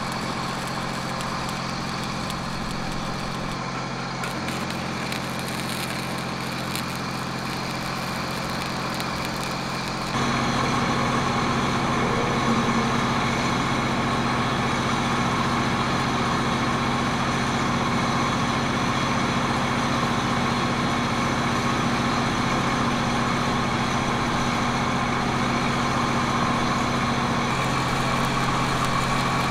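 Telehandler engine idling steadily, an even hum that holds one pitch. It gets louder about ten seconds in.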